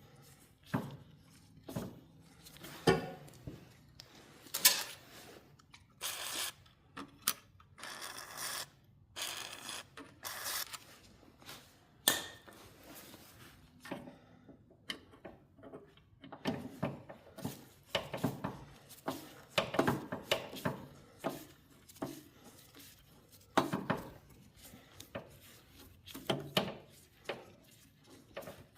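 Hand tools working stiff bolts loose around the carburetor of an old snowblower's small engine: irregular metal clinks, scrapes and clicks, some in quick runs.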